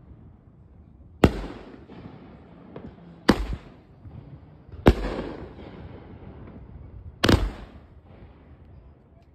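A 2-inch bore firework cake firing: four loud bangs of its shells breaking, spaced about one and a half to two and a half seconds apart. Each bang is followed by a short crackle and rumbling echo.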